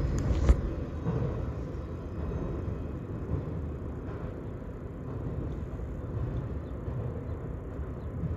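Low rumble of a freight train's last autorack cars rolling away and slowly fading, with two sharp clanks right at the start, about half a second apart. Road traffic mixes in.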